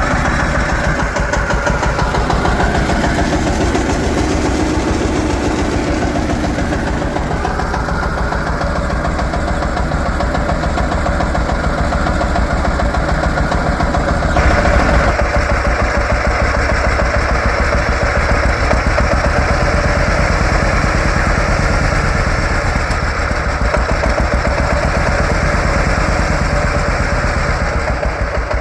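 1950 John Deere Model A's two-cylinder engine running, with a steady, rapid pulse of exhaust beats. The sound changes abruptly about halfway through.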